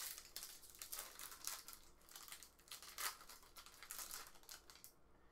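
Foil trading-card pack wrapper crinkling as it is torn open and handled, a fast run of crackles that stops shortly before the end.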